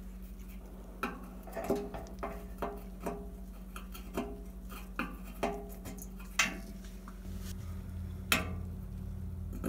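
Needle-nose pliers working a wire keeper clip off a gas stove burner's spark igniter: about a dozen small, irregular metal clicks and scrapes over a steady low hum.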